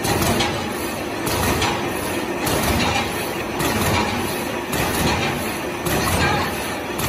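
Paper core making machine running, a dense steady mechanical clatter and rush with a louder swell about once a second as it cycles.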